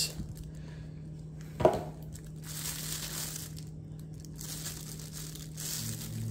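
Thin clear plastic bag crinkling as it is unwrapped from around a leather sunglasses case, in patches of crackle with short pauses between. One brief, sharper and louder sound stands out about a second and a half in.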